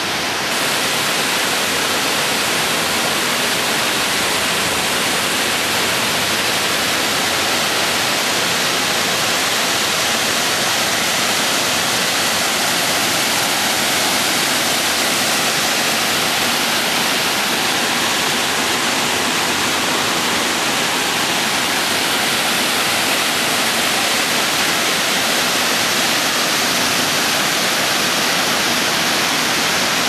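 Steady rush of Enfield Creek's water cascading through the shale gorge.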